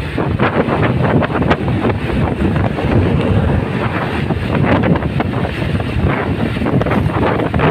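Wind buffeting the microphone, mixed with the rumble of an intercity passenger train passing close by. A steady loud roar with irregular crackles.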